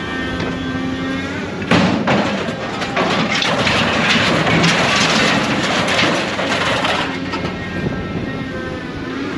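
Scrap metal crashing and clattering into a steel scrap trailer as a material handler's grapple drops its load, starting with a loud bang about two seconds in and lasting about five seconds. Before and after it, the machine's engine and hydraulics run with a steady hum.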